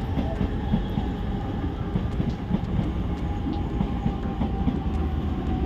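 A train running past on the tracks: a steady heavy rumble with a rapid, irregular clatter and a faint steady high tone over it.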